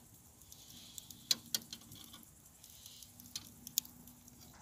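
Wood fire in a metal fire pit crackling quietly, with a handful of sharp pops at irregular moments.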